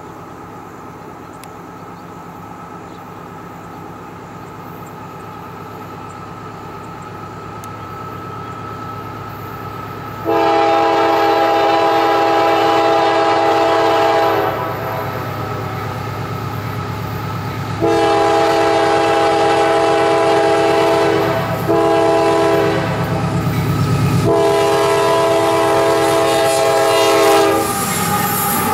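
GE AC6000CW diesel locomotive approaching at the head of a freight train, its engine rumble growing steadily louder, then sounding its air horn for the grade crossing in four long blasts, the first about a third of the way in and the last ending just before it reaches the crossing. Near the end the locomotive passes close, with wheels clattering on the rails.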